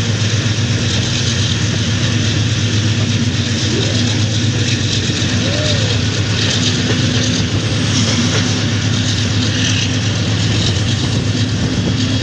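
Pakistan Railways AGE-30 diesel-electric locomotive 6025 running steadily under way, heard from the open door of the coach just behind it: a steady low engine drone mixed with wind and rolling wheel noise.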